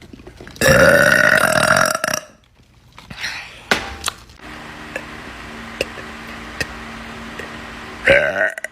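A person burping loudly: one long, drawn-out burp of about a second and a half beginning half a second in, a shorter one around three seconds, and another short burp near the end.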